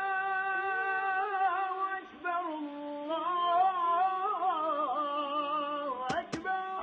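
Wordless hummed vocal melody from an Arabic nasheed, holding long notes with a short break about two seconds in. Two quick sharp clicks near the end.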